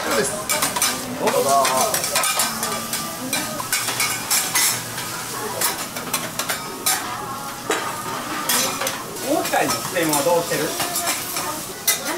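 Food sizzling on a teppanyaki steel griddle, with metal spatulas repeatedly scraping and clacking against the hot plate and the serving dish. Voices murmur faintly in places.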